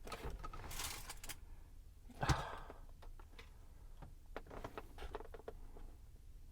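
Faint handling noises: soft rustling and light clicks, with one louder knock about two seconds in.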